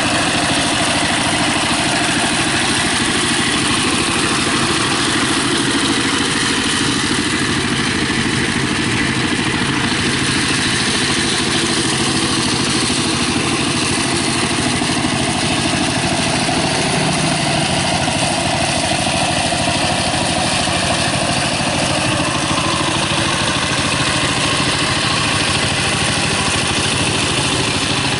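Walking tractor's single-cylinder diesel engine running steadily under load as it drives a rotary tiller through wet paddy mud.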